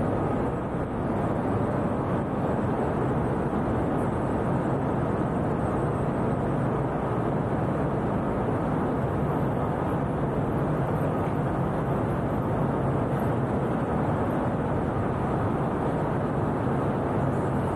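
Steady low rumble of city ambience, engine noise with a faint low hum underneath and no distinct events.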